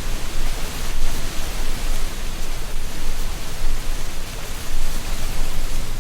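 Wind blowing through a tree canopy: a steady rush of rustling dry leaves over a deep low rumble, swelling and easing a little in gusts.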